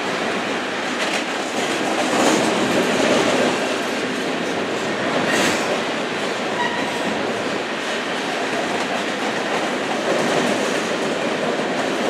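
Covered grain hopper cars of a Canadian Pacific freight train rolling past at a steady pace, steel wheels on rail making a continuous rumble with clicks over the rail joints. A faint brief wheel squeal comes about halfway through.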